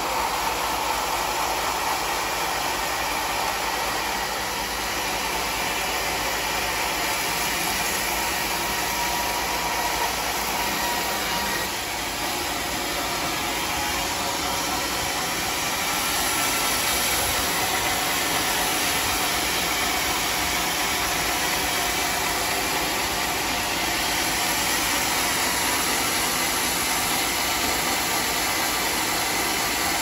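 Band sawmill running steadily as its blade saws through a large mahogany log, a continuous even machine noise that gets slightly louder about halfway through.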